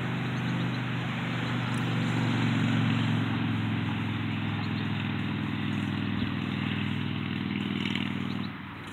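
An engine running at a steady pitch, stopping abruptly about eight and a half seconds in.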